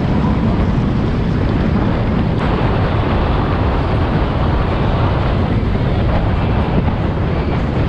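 Loud, steady rush of wind buffeting the microphone and water rushing along the hull as a center-console boat runs at speed.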